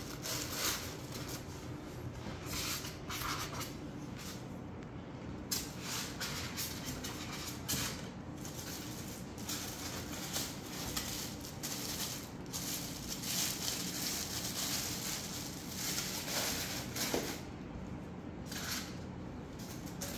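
Plastic packing bags rustling and crinkling in irregular bursts as wrapped statue parts are handled and shifted in a foam packing tray.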